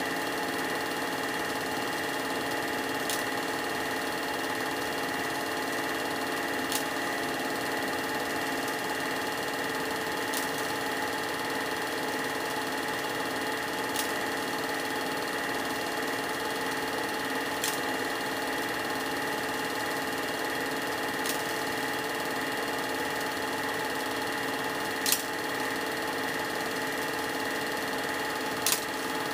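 Film projector running: a steady mechanical whir and hum from its motor and film transport, with a short click repeating about every three and a half seconds.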